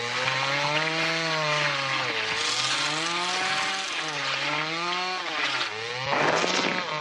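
Chainsaw running and cutting, its engine pitch rising and falling as it is revved, with a brief burst of harsh noise about six seconds in.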